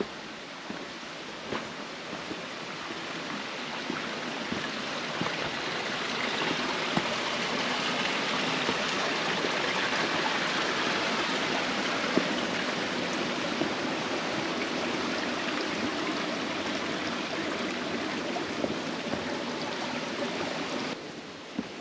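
A steady rush of water that builds over the first several seconds and then holds, with scattered small clicks and taps. It drops off sharply near the end.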